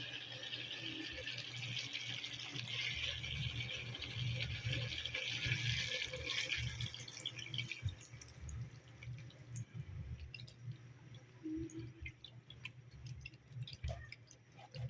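Water running and splashing, as from a tap into a sink, for about the first half; it then stops and gives way to scattered light clicks and knocks.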